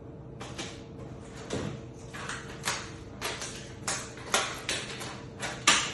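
A quick, irregular series of short scraping noises, about two to three a second, loudest near the end.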